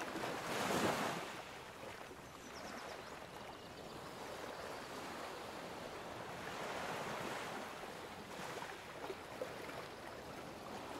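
Soft rushing water ambience, swelling about a second in and again around seven seconds.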